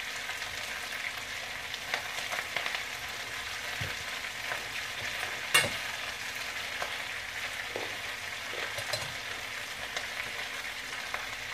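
Chopped cabbage, onions and bacon sizzling steadily in bacon fat in a frying pan, with a few light clicks and one sharp knock a little past halfway.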